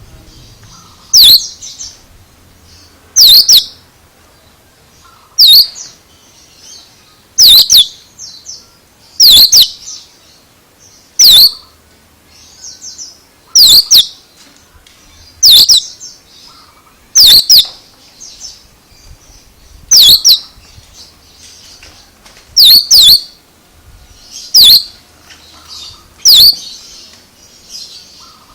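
Oriental magpie-robin (kacer) giving a loud, sharp call over and over, about every two seconds, with soft twittering in between.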